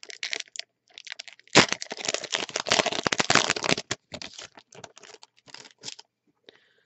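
Foil wrapper of a Yu-Gi-Oh! booster pack crinkling and tearing as it is opened by hand. A dense crackle with a sharp, loud burst about a second and a half in lasts about four seconds, then thins to scattered crinkles that stop near the end.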